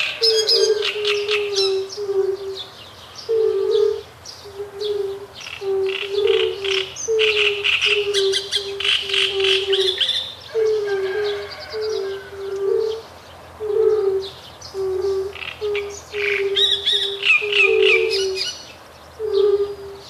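A chorus of fire-bellied toads calling: short, low, musical notes repeated steadily, about two a second, some of them overlapping. Over them, a great reed warbler sings in harsh, chattering bursts.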